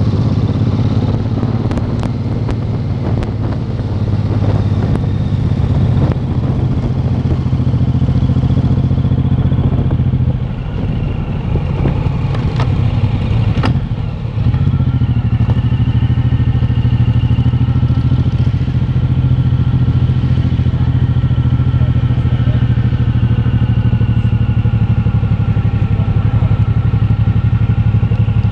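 Motorcycle engine running at a steady low note, heard from on the bike. About halfway through it eases off briefly with a few knocks, then runs steadily again.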